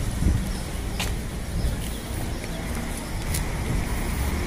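Outdoor street background noise: a steady low rumble, with two short sharp clicks about a second in and past three seconds.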